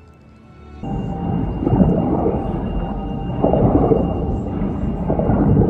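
A film soundtrack playing over a large venue sound system: a deep rumbling sound effect comes in suddenly about a second in and swells in waves, with a faint steady high tone above it.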